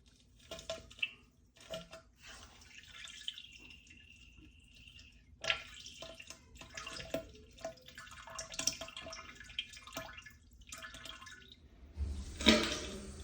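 Diarrhea spattering and splashing into toilet bowl water in irregular spurts, with sputtering gas. A toilet flush starts with a loud rush near the end.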